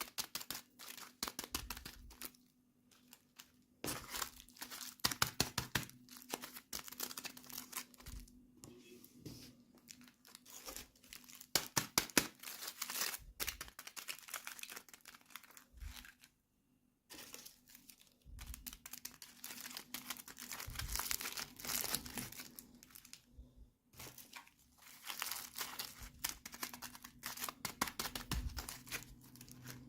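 Toy packaging being crinkled and torn open by hand, in crackly spells broken by short pauses, with a faint steady hum underneath.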